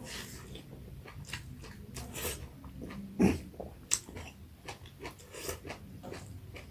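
A person chewing a mouthful of pork curry with mustard greens close to the microphone, with irregular small clicks and smacks of the mouth.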